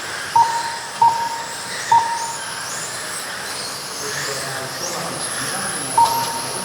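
Electric radio-controlled race cars whining around the track, their motors rising and falling in pitch, with four short, loud beeps from the lap-counting system as cars cross the timing line.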